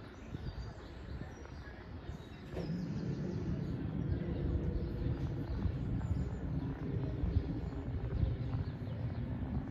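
Low, steady rumble of a jet airliner passing high overhead, getting louder about two and a half seconds in.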